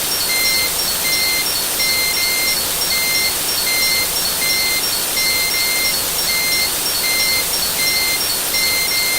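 Vehicle reversing alarm beeping steadily, one high beep about every three-quarters of a second, over a steady hiss.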